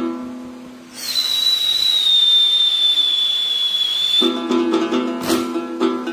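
Đàn tính lute being plucked in a steady rhythm, falling silent for about a second, then a loud, steady, high whistling tone that sinks slightly in pitch and holds for about three seconds. The plucking resumes as the tone stops, with a short burst of noise about a second later.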